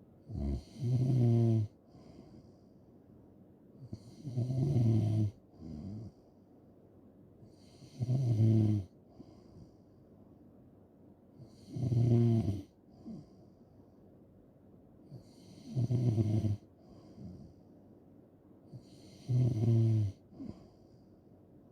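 A person snoring in sleep, six snores about four seconds apart. Each is a low, buzzing snore of about a second, followed by a short, softer puff of breath.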